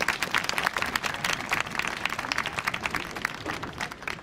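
Audience clapping and applauding, dense at first and thinning out near the end.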